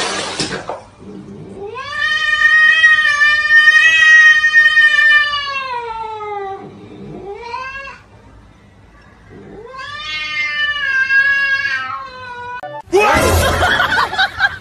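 Three long, drawn-out animal yowls. The first lasts about five seconds and rises, then slowly falls in pitch; a short one follows, then another of about three seconds. Near the end a cut brings in a sudden burst of louder noise.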